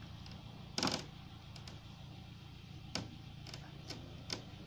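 Sharp wooden knocks and clicks as a heavy old hardwood pole shifts against broken concrete blocks while it is pushed: a short rattling cluster about a second in, the loudest, then four single knocks spaced about half a second apart near the end, over a low steady rumble.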